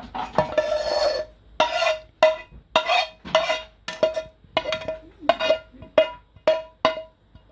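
A spoon scraping paste out of a cooking pot, then knocked against the rim again and again, about two ringing taps a second, each with the same clear pitch, to shake the masala paste off into the blender.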